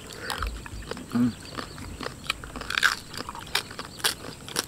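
Close-up crunching and chewing of crispy roast pig (lechon) skin and meat: an irregular run of sharp crackles as it is bitten and chewed.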